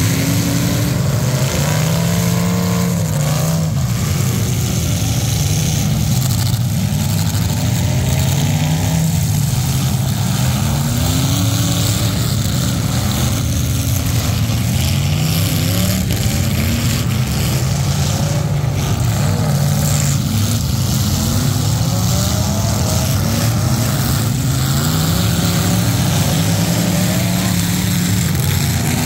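Demolition derby cars' engines running hard, several at once, their pitch rising and falling over and over as they rev.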